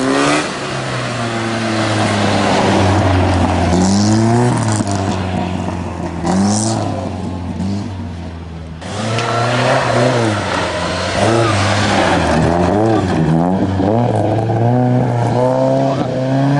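Historic rally cars at racing throttle on a gravel stage: the engines rev hard, with the pitch climbing and dropping through gear changes. The sound breaks off suddenly about nine seconds in and a second car takes over.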